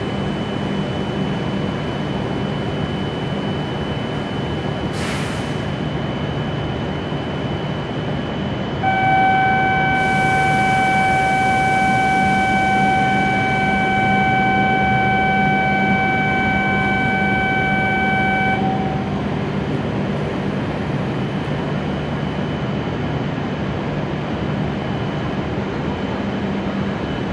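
W7 series Shinkansen train standing at the platform with a steady low hum, under the noise of the station. About nine seconds in, a steady electronic warning tone starts up and holds for about ten seconds before cutting off; it is the departure or door-closing signal.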